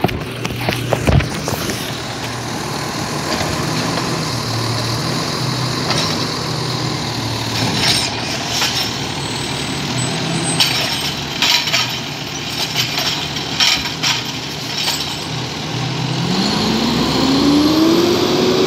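Diesel refuse truck engine running at idle with a steady low hum, with several short sharp knocks and clacks through the middle. Near the end the engine revs up, its pitch rising steadily.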